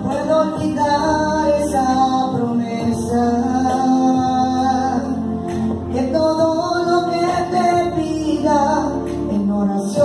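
A woman singing a worship song with held, gliding notes, accompanied by an electronic keyboard.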